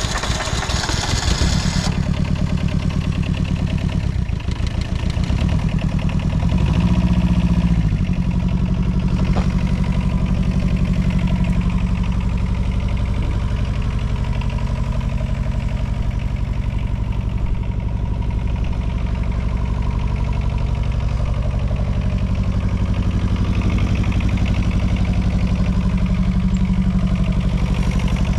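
Small Yanmar engine of a 2004 Daewoo Solar 010 mini excavator running just after starting, then idling steadily. Its pitch briefly rises and falls about seven seconds in.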